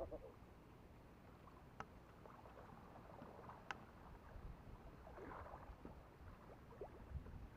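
Near silence: a faint low wash of river water stirred by people wading, with two small clicks.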